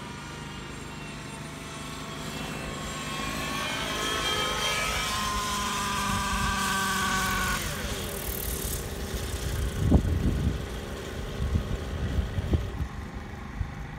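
Align T-Rex 700XN nitro RC helicopter, its glow engine and rotor running with a steady multi-tone whine that grows louder as it comes down close. About seven and a half seconds in the pitch drops away as the engine is throttled back for landing. Irregular low buffeting thumps follow as it settles on the pad.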